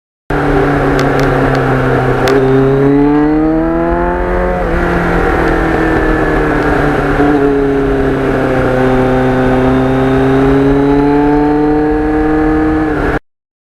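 Motorcycle engine under way, its pitch climbing as it accelerates through a gear, dropping suddenly at a shift about five seconds in, then rising slowly again. Wind rumble runs underneath throughout.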